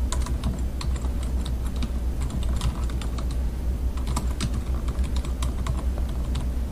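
Typing on a computer keyboard: a run of irregular keystroke clicks, over a low steady hum.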